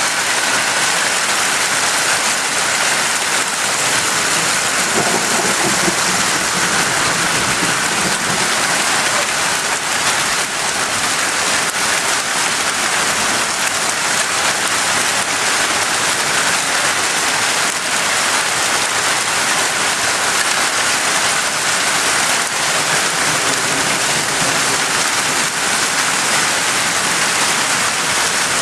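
Heavy hail falling, a dense, steady clatter of countless small hailstone impacts on hard surfaces, mixed with the hiss of the downpour.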